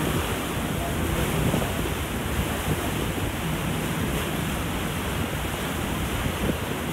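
Steady churning and rushing of the wake along the hull of the paddle steamer La Suisse, with wind buffeting the microphone.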